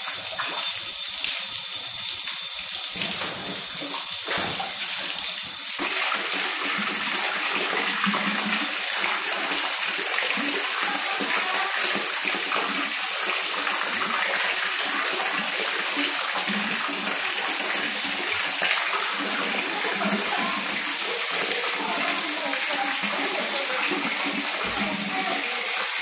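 Water pouring in a steady stream from a stone spout into a granite tub, splashing into the water already in it. The splashing gets fuller and a little louder about six seconds in.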